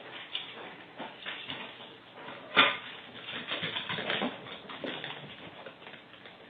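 A pet animal making sounds, among scattered short noises, with one sharp knock about two and a half seconds in.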